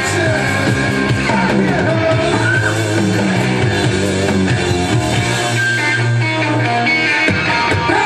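Rock song with singing and guitar, playing back from an audio CD in VLC media player on a computer.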